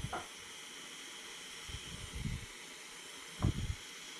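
Butane soldering iron (LEXIVON LX-770) hissing steadily as its flame heats a wire joint, with a few soft low thumps.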